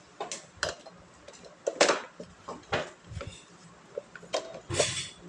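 Hard objects being handled, making an irregular string of sharp clicks, knocks and clinks, with louder clatters about two seconds in and near the end.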